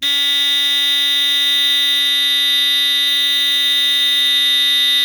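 GE Home Sentry 8201-201 smoke detector's mechanical buzzer sounding its alarm: a pretty loud, steady, unbroken buzz that starts abruptly.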